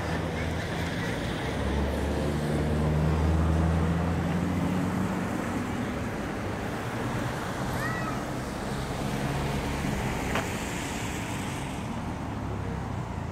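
Street ambience: a vehicle's engine hum swells over the first few seconds and fades, over a steady wash of traffic and wind noise, with a short chirp about eight seconds in and a sharp tick a couple of seconds later.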